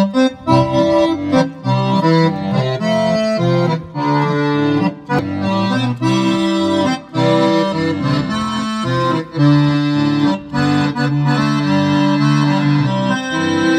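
Roland digital accordion played live through an amplifier: a melody over low bass notes, played in phrases with short breaks between them.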